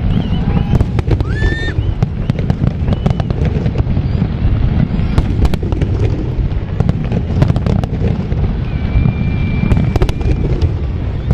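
Large fireworks display going off continuously: a dense rumble of shell bursts with many sharp cracks and bangs throughout, and a high whistle held for about two seconds near the end.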